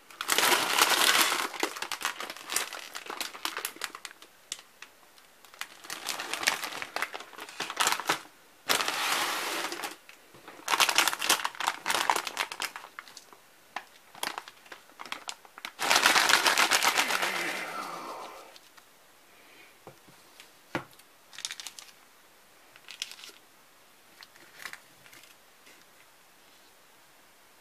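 Plastic wrappers of Samyang Buldak instant-noodle packets crinkling loudly in bursts as they are handled and one is opened. This is followed by a few light clicks and rustles as the noodle block and sauce sachets are set out.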